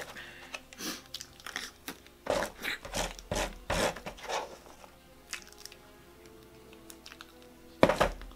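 A spoon scraping and scooping soft cake from a plastic cake tray, with chewing, in irregular bursts; just before the end the spoon is set down in the tray with a sharp knock.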